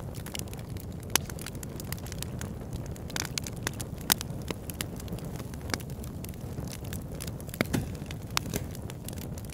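Fireplace fire crackling: a steady low rumble under frequent, irregular sharp pops and snaps, the loudest about one and about four seconds in.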